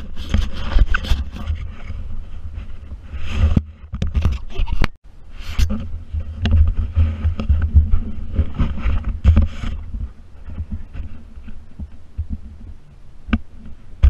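Close handling noise as kayak gear is moved on a gravel bar: fabric and gear rubbing and scraping against the camera, with sharp knocks and low thuds. It thins out in the last few seconds, leaving a single sharp click near the end.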